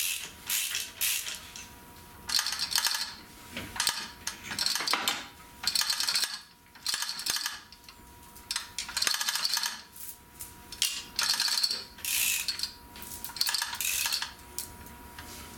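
Repeated short bursts of metallic ratcheting and clinking from an engine hoist and its lifting chains as the engine is lowered onto its mounts, each burst under a second long with brief pauses between.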